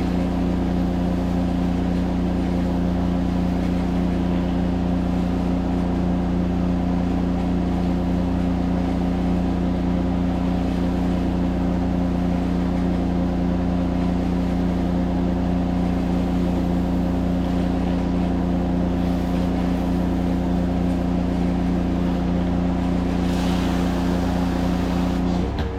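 Pressure washer engine running steadily at constant speed, with a steady hum; the sound changes abruptly near the end.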